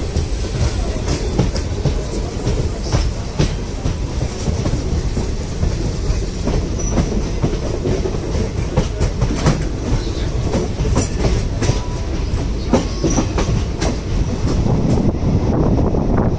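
Indian Railways passenger coach running, heard from its open door: a steady rumble of wheels on track with many irregular sharp clicks over rail joints and a few brief faint wheel squeals. Near the end, wind rushing past the microphone grows louder.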